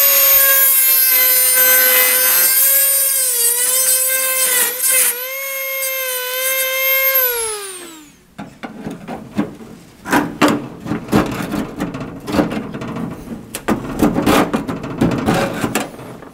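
Dremel rotary tool with a cut-off disc whining at high speed as it cuts the rusty sheet-steel edge of a door, the pitch dipping briefly under load; it winds down, falling in pitch, about eight seconds in. Then irregular scraping and knocking of metal.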